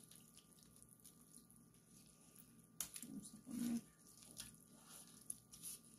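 Soft, faint patter and squish of wet cut beef tripe pieces being scraped off a board with a knife and dropped into a metal pan, with a sharper click about three seconds in.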